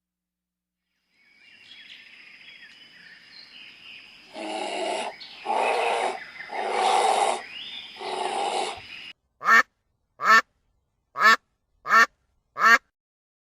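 Animal calls: four loud, harsh calls over faint birdsong, then, after an abrupt break, five short, sharp calls about a second apart.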